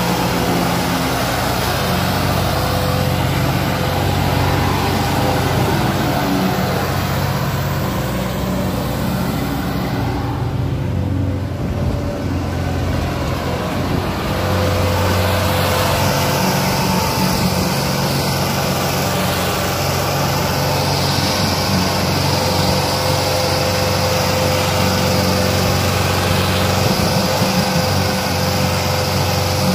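Sonalika DI 750 tractor's diesel engine running steadily under load while it pulls a trailer heaped with sand.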